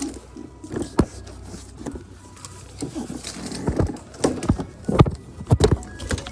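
A series of irregular knocks and thumps, a few a second, loudest near the end.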